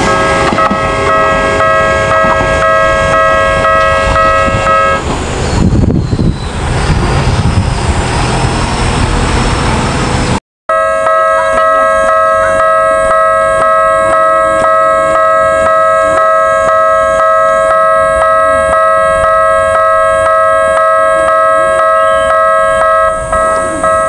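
Japanese level crossing's electronic warning bell ringing a fast, steady, repeated ding. It is interrupted after about five seconds by a few seconds of rumbling noise, then resumes.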